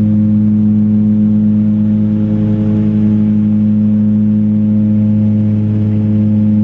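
Engines and propellers of a 19-seat twin-turboprop airliner heard inside the cabin: a loud, steady drone with a low tone and evenly spaced overtones, holding an even pitch.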